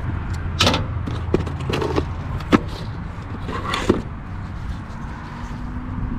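A cardboard box being opened and handled: several short rustles and knocks of the lid and packaging over the first four seconds, over a steady low hum.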